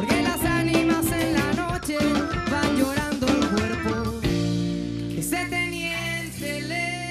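Rock band music with drum kit and guitar; about four seconds in the drum strokes stop and held notes ring on.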